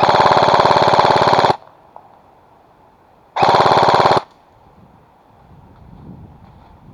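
Airsoft electric gun firing on full auto: a burst of about a second and a half, then after a pause a shorter burst of under a second, each a fast, even rattle of shots.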